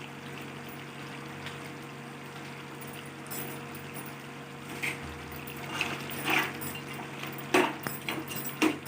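Chicken curry simmering in a pan with a steady bubbling hiss. In the second half a spoon scrapes and clinks against the pan several times as the curry is stirred.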